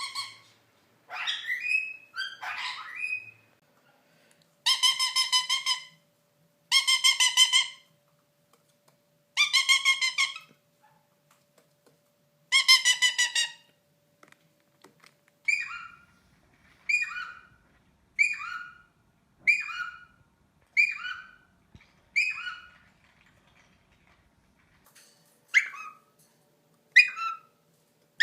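Indian ringneck parakeet calling: a couple of gliding squawks, then four pulsing, buzzy calls about a second long each, then a run of short falling calls about one every second and a bit, and two more near the end.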